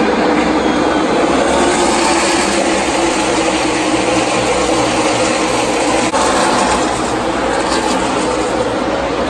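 A pack of NASCAR Xfinity Series stock cars running at racing speed, the loud, steady sound of many V8 engines blending together as the field passes.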